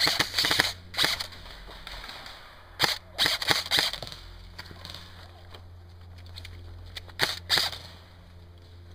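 Airsoft M4-style rifle firing close by, sharp rapid clicks in short bursts and a single shot, with a pause of about three seconds before a last burst near the end.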